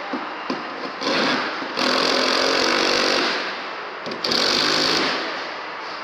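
Handheld power tool run in short bursts as its trigger is pulled and released: three runs of roughly half a second, a second and a half, and under a second, with a few small clicks before the first.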